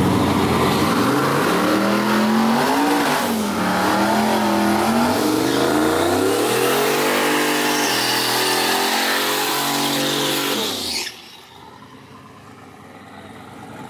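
Square-body GM pickup's drag-race engine revving hard during a burnout, its pitch climbing and falling in several surges. About eleven seconds in the revs fall away and the sound drops sharply to a much quieter stretch.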